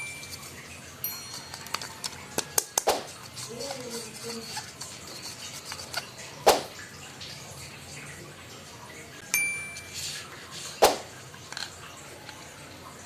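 Small toys being handled, giving sharp plastic knocks and clicks, with a bright chime ringing about a second in and again near the end.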